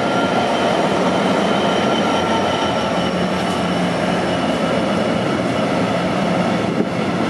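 A Class 66 diesel-electric freight locomotive, with its EMD two-stroke V12 engine running, passes close by at speed. The steady rolling rumble of its train of open coal wagons follows.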